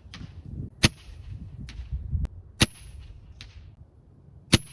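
Pellet rifle fired three times, a sharp crack about every two seconds. Each shot is followed under a second later by a fainter tick.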